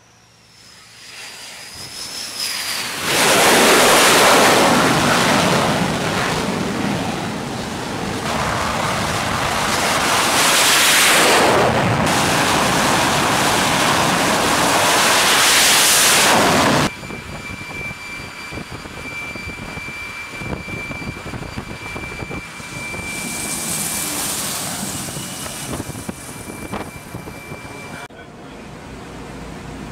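Military jet engines on an aircraft carrier flight deck, F/A-18 Super Hornets. The engine noise builds over the first few seconds and stays very loud, swelling twice, then cuts off abruptly about seventeen seconds in. After that comes quieter aircraft engine noise with a steady high whine.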